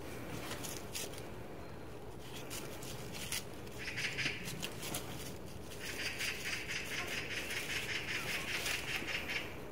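Dry fallen leaves crackling and rustling as a small dog pokes through the leaf litter: a few sharp crackles first, a short rustle about four seconds in, then a longer stretch of steady rustling from about six seconds in.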